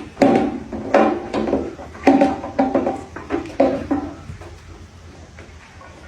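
A run of irregular knocks and clanks of hard, metal-sounding parts being struck or handled, about a dozen hits over roughly four seconds, some ringing briefly. The knocks then stop.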